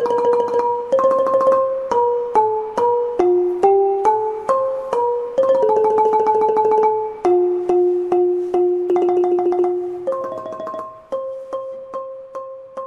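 Instrumental music: a slow melody of single struck notes, some of them repeated in quick tremolos, fading out near the end.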